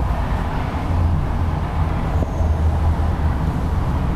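Power driver's seat of a 2017 Chevrolet Silverado 2500 LTZ running down and back, its motors giving a steady low hum that swells a little at times.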